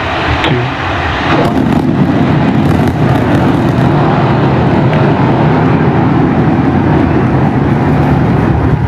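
SpaceX Super Heavy booster's Raptor rocket engines firing during Starship's launch: a loud, steady rumble that grows louder about a second and a half in and then holds.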